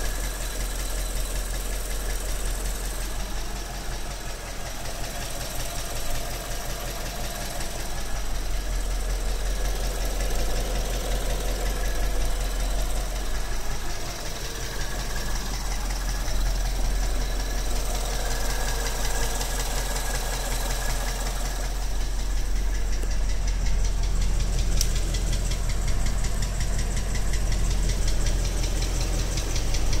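A 2012 Ford Mustang's 5.0 V8 running steadily at idle with a rapid, regular ticking knock. The low engine sound grows stronger in the last third, where the knock is more obvious from beneath the car on the passenger side. The owner wonders whether this knock is the one covered by Ford bulletin TSB 12-8-14.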